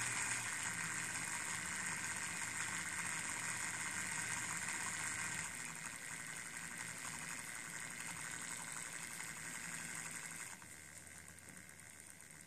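Small brushed DC motor driving a steel roller through rubber-rimmed wheels, running with a steady whir and hiss under a speed controller. The sound steps down twice, about halfway and again near the end, as the speed is turned down.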